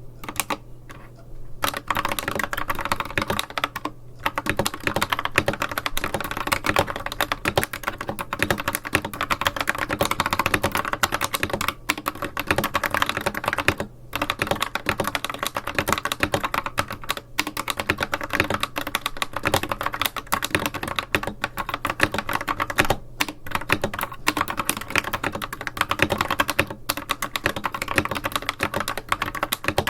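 Fast typing on a mechanical keyboard with stock, factory-unlubed Akko V3 Cream Yellow linear switches: a dense, continuous clatter of keystrokes that begins about two seconds in, broken by a few brief pauses.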